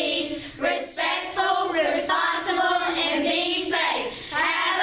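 A group of children singing together in unison, holding long notes with short breaks between phrases.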